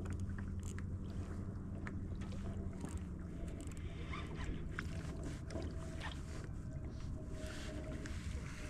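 Water slapping and lapping against a kayak's hull, over a steady low rumble, with scattered small clicks and knocks.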